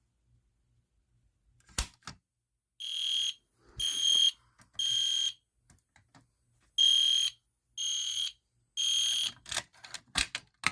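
EST Genesis fire alarm horn sounding the temporal code-3 evacuation pattern: three short, high-pitched electronic horn beeps, a pause, then three more. A few sharp clicks come before and after the beeps.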